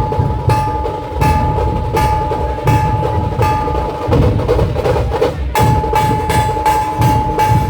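Dhol-tasha ensemble playing: deep dhol beats under sharp, rapid tasha strokes, with a steady metallic ringing tone that drops out for a moment past the middle.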